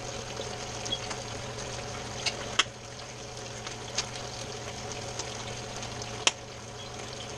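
Potato slices frying in hot olive oil in a pan, a steady sizzle with a few sharp pops and crackles spaced seconds apart. A steady low hum runs underneath.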